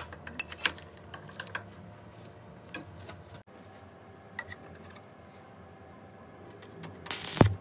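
Steel square tubing clinking against the steel jaws of a bench vise as it is set and clamped, a quick run of sharp metallic clicks, then a few faint ticks. Near the end, a short loud crackle as a stick-welding electrode strikes an arc on the joint.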